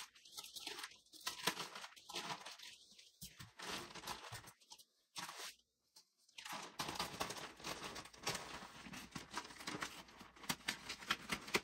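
Packaging being cut and torn open by hand: scratchy tearing and crinkling with small crackles, in short spurts at first and steadier from about halfway.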